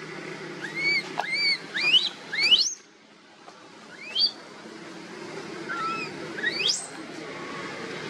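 Baby long-tailed macaque giving high, arching squeals and rising cries, about seven in quick succession with a short break near the middle: the distress calls of an infant taken from its mother.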